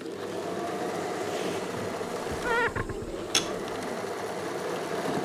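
Steady low ambient hum, with a brief wavering squeak about two and a half seconds in and a sharp click about a second later.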